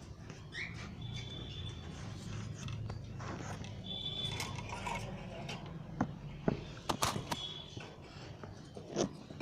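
Parrot giving a few short, high chirps, one rising, among scattered sharp clicks and scrapes.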